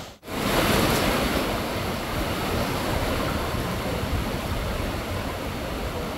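Heavy rain pouring down steadily, a dense even hiss; the sound drops out for a moment right at the start.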